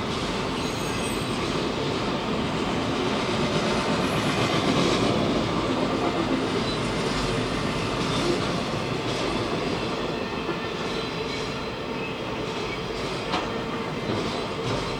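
Freight train cars rolling steadily past, with wheels clicking over the rail joints and a steady squeal from the wheels.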